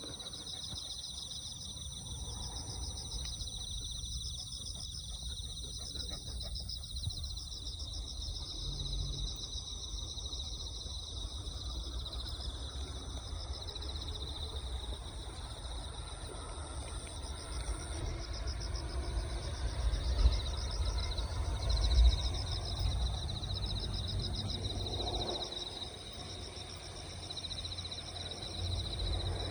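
A dawn chorus of insects: several kinds trilling at once in steady, fast-pulsing high-pitched layers. A low rumble runs underneath and swells about twenty seconds in.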